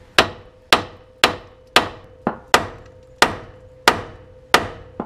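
Small hammer tapping on the Honda Pioneer 1000's tie rod end at the steering knuckle, about nine sharp metal-on-metal taps roughly every half second, with a faint ringing tone between strikes. The tapping is meant to break the tie rod end's tapered stud loose from the knuckle.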